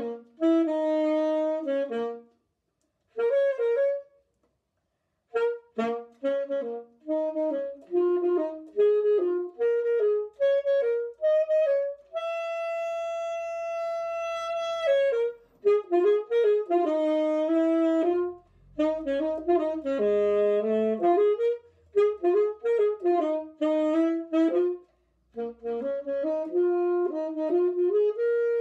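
Solo alto saxophone playing a melody in short phrases of separate notes, with brief pauses between phrases and one long held note about halfway through.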